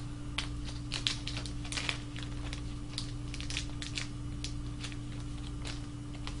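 Small plastic zip-top bag crinkling and rustling in the hands as a bearing is taken out of it: a run of scattered light crackles and clicks, thinning out after about four seconds, over a faint steady hum.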